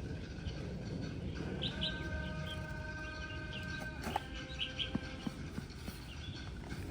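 Birds chirping in short, repeated calls over a steady background hum. A held, even tone sounds for a few seconds near the start, and there are a few faint clicks.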